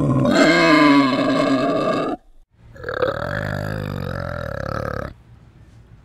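Boar giving two drawn-out, guttural grunting calls: the first ends about two seconds in, and after a short pause a second, rougher pulsing one lasts about two seconds.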